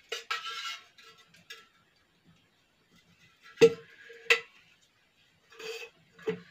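A steel spoon scraping and clinking against a steel oil container as oil is spooned out: a short rattle at the start, then two sharp ringing clinks in the middle and two more near the end.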